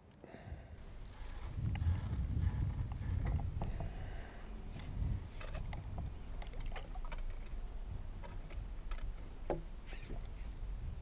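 Water sloshing and splashing around a hooked mullet being played near the surface, over a steady low rumble, with scattered sharp clicks and short splashy bursts.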